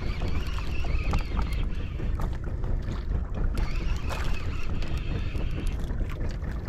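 Steady low rumble aboard a small fishing boat at sea, with wind buffeting the microphone and scattered small knocks and clicks.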